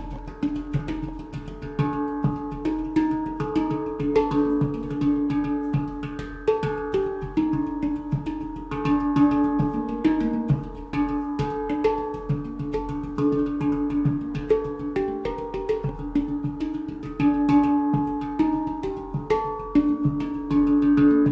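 Golden Sound handpan tuned to the Pygmy scale, played with the fingers. A continuous stream of quick strikes on its steel tone fields, each note ringing on, with a low note struck again and again under the melody.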